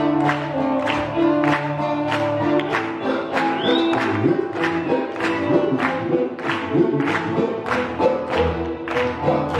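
Live acoustic band music from double bass, guitar and violin, with a steady quick strummed beat.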